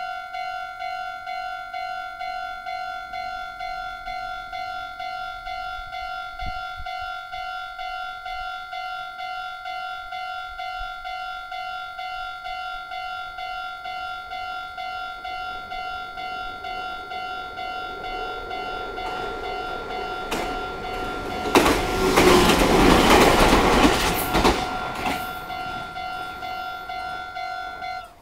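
Japanese level-crossing alarm ringing in a rapid, even, repeating electronic clang while a Meitetsu 6000 series electric train passes over the crossing. The train's wheel and running noise builds about two-thirds of the way in, is loudest for a few seconds, then fades. The alarm stops at the very end.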